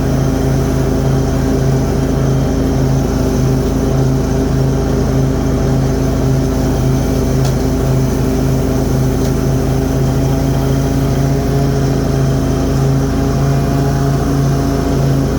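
Cub Cadet Z-Force zero-turn mower's Kohler Command Pro 23 hp V-twin engine running steadily at high throttle with the cutting deck engaged, mowing wet grass.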